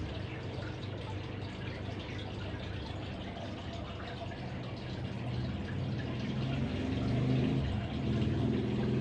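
Aquarium submersible water pump running with a steady low hum, over the trickle and drip of circulating water. The hum grows louder about halfway through.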